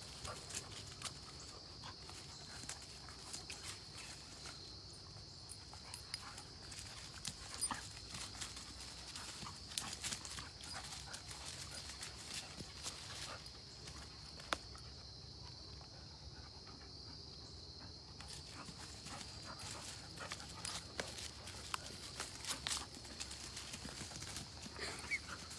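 Two dogs playing tug-of-war, with scattered scuffling, knocks and claw clicks as they pull and shift their feet.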